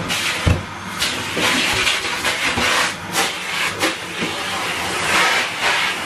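A Henry cylinder vacuum cleaner running with a steady rushing hiss as its hose sucks along the floor, with two dull knocks in the first half-second.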